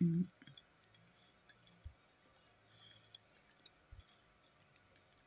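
A brief voiced murmur at the very start, then faint, scattered mouth clicks and smacks close to the phone's microphone.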